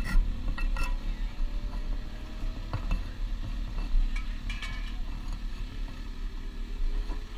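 Handling noise from gloved hands and riding gear around a parked sportbike: a few scattered clicks and light knocks over a steady low rumble.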